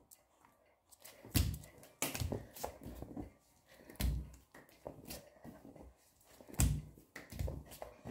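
Burpees on a floor at home: bare feet and body landing with three heavy thuds a little over two and a half seconds apart, with lighter knocks and shuffles between them.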